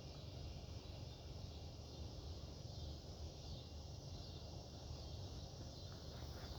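Quiet outdoor ambience: a steady low rumble with a faint high drone of insects.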